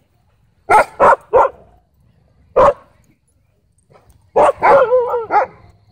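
A dog barking: three quick barks about a second in, a single bark a little later, then a faster run of barks near the end.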